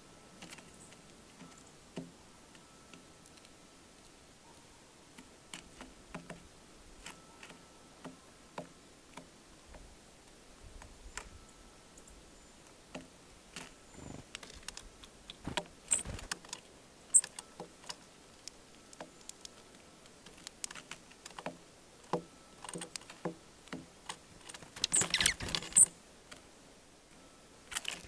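Small birds feeding at a wooden platform seed feeder: scattered light taps and ticks from pecking and hopping on the seed, a few sharper high ticks, and a short flurry of rustling about 25 seconds in, the loudest moment.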